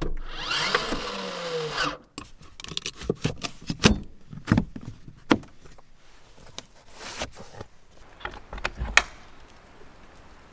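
A scraping, sliding sound with a wavering pitch for about two seconds, then a run of irregular knocks and clatter, like things being handled and set down.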